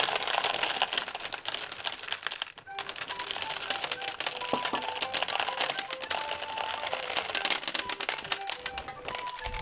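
Hard gumballs pouring into a plastic toy pool, a dense rapid clatter of small balls hitting each other and the plastic, with a brief break about two and a half seconds in.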